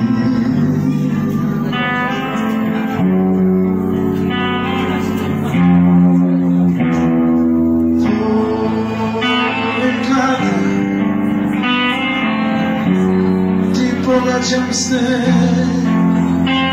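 Live band playing an instrumental passage of a slow blues: electric guitar lines with held notes over bass and drums.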